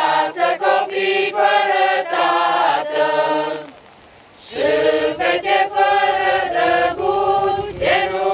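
Group of men singing a Romanian folk song together, unaccompanied, in long held notes. The singing breaks off briefly a little before halfway for a breath, then the next phrase begins.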